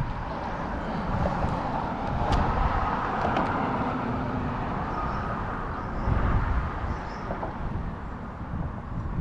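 Road traffic crossing a concrete road bridge: a hiss of tyre noise that swells and fades, over a low rumble.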